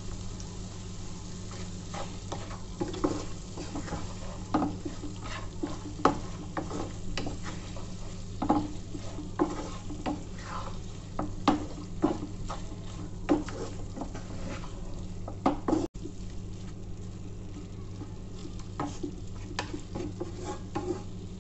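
Wooden spatula stirring and scraping pepper chicken in a non-stick frying pan, with irregular scrapes and taps over a quiet sizzle of the nearly dry masala.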